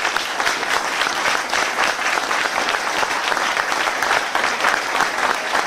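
Audience applauding a speaker at the end of a talk: many hands clapping in a dense, steady patter that holds at an even level.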